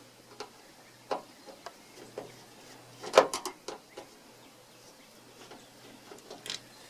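Scattered light clicks and knocks of hands and a tool working at the truck's front turn-signal light housing, loosening a hard-to-reach screw. The loudest is a short cluster of knocks about three seconds in, with another near the end.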